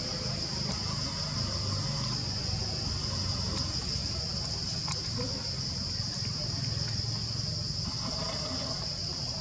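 Steady, high-pitched insect chorus over a low rumble.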